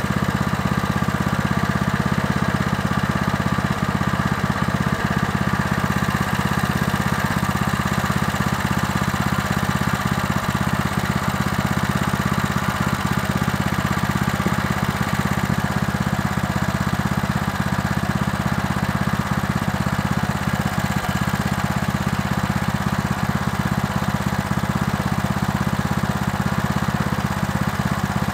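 Tractor engine idling steadily, left running to warm up.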